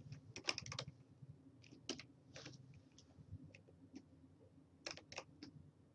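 Faint computer keyboard keystrokes: a quick run of taps just after the start, a few scattered single taps, and another short run near the end.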